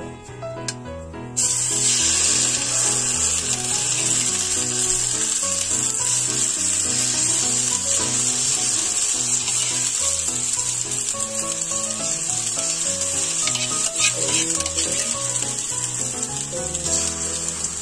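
Egg-and-sardine batter frying in hot cooking oil in a pan: a loud sizzle starts suddenly about a second and a half in as the batter goes into the oil, then keeps up steadily. Background music plays underneath.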